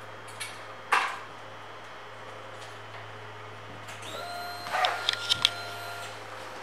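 Honda VTX1800R's ignition switched on before starting: a sharp click about a second in, then a steady whine of about two seconds with a few clicks near its end, the fuel-injected V-twin's electric fuel pump priming.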